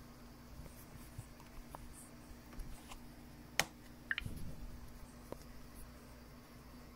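Quiet room tone with a steady low hum and a few faint, scattered clicks and small knocks, the sharpest about three and a half seconds in and a small cluster just after it.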